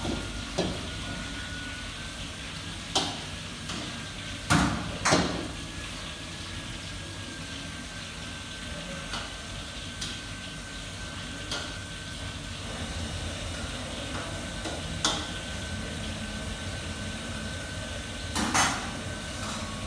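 Commercial kitchen ambience: scattered sharp knocks and clanks of pots, pans and utensils over a steady hum with a faint high whine. The loudest are two knocks about four and a half seconds in and another pair near the end.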